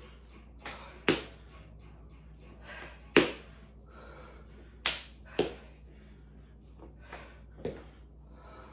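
Footsteps and landings on a hard floor during lunges with a front knee drive: about seven sharp slaps and thuds at uneven intervals, with breathing between.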